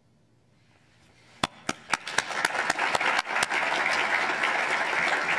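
Audience applauding: a few separate claps about a second and a half in, quickly swelling into steady applause.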